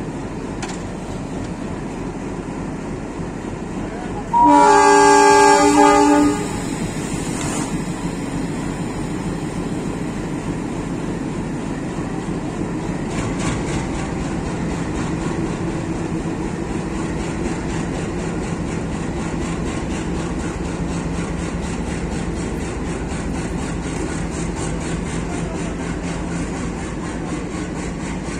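Diesel locomotive of an Indian Railways passenger train sounding its horn once, a loud blast of about two seconds roughly four seconds in, over the steady rumble of its engine as the train pulls out. The engine rumble carries on as the coaches roll slowly past.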